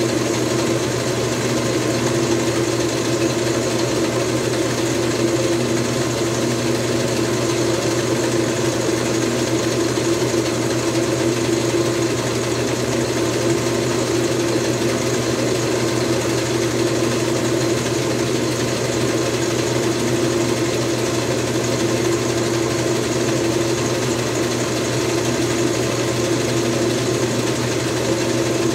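Small metal lathe running steadily with a constant hum while a workpiece is turned down to size.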